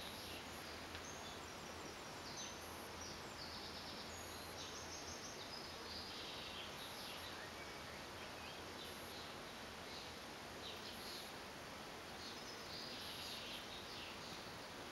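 Faint outdoor ambience: a steady hiss with small birds chirping and twittering on and off.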